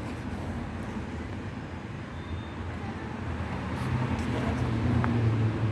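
A vehicle running with a low, steady rumble that grows louder over the last couple of seconds.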